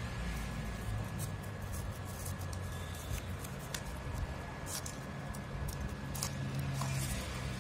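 Snap-off utility knife blade cutting through corrugated cardboard: a run of short, irregular scratchy clicks and rasps as the blade is drawn along the line. A steady low hum runs underneath.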